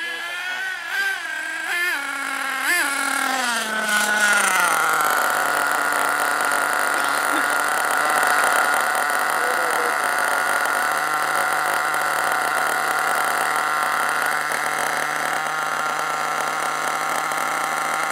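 Nitro RC monster truck's small two-stroke glow engine revving up and down in short blips, then settling about four seconds in to a steady idle.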